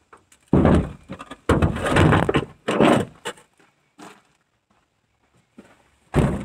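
Loud knocks and scraping against a pickup truck bed, in several bursts over the first three seconds, with one more knock near the end.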